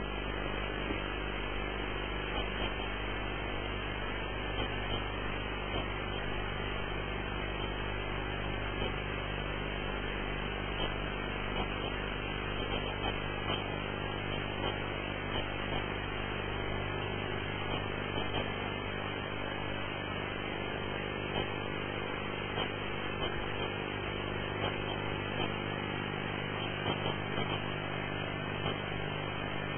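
Steady electrical hum and hiss from the broadcast recording, with faint scattered ticks.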